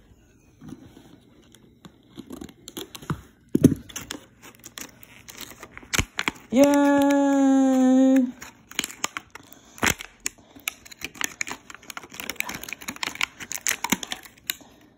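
Clear plastic toy packaging being torn open and crinkled by hand, with many sharp crackles and clicks. About six and a half seconds in, a steady held note, close to two seconds long, is the loudest sound.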